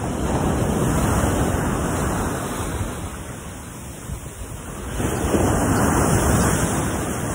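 Surf breaking on a sandy beach and against shore rocks, in two surges: one at the start and another about five seconds in.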